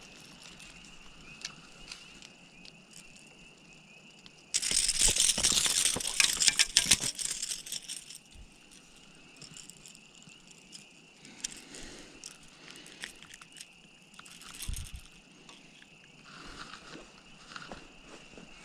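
Crackling rustle of dry grass and dead leaves, loud for about three seconds a few seconds in, then quieter scattered rustles and light knocks.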